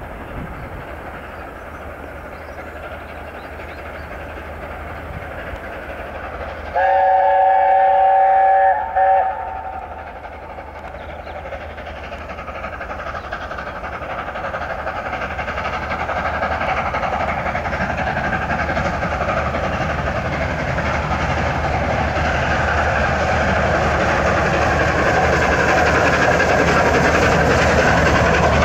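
LNER A4 Pacific 60019 Bittern's chime whistle sounds one long blast of several notes together about seven seconds in, then a short second toot. After that the steam locomotive and its train approach, the sound of the engine and wheels growing steadily louder as they pass close by.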